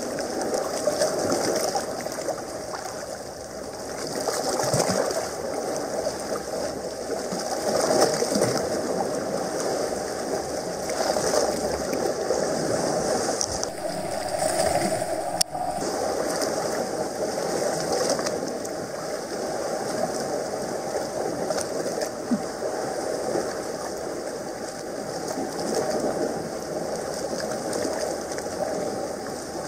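Seawater sloshing and lapping against rocks close to the microphone, a continuous wash of water with a sharp click about halfway through.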